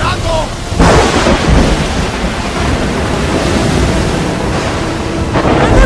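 Storm at sea: a loud crash of water about a second in, then a steady rush of wind and surf that surges again near the end.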